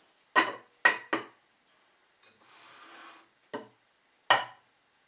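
Wooden pieces being handled: five sharp knocks of wood against wood, and a scraping rub lasting about a second in the middle.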